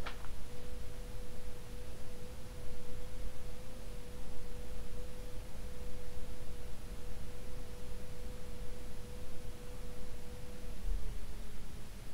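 Commander Angel 52-inch ceiling fan running with a steady motor hum over a low rumble; its bearings are nearly perfect. A short click comes at the very start, and the hum drops slightly in pitch near the end.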